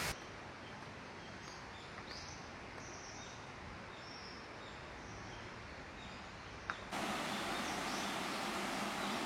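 Small birds chirping now and then over a steady outdoor hiss. About seven seconds in there is a click, and the background jumps to a louder, fuller steady noise, with faint chirps still coming through.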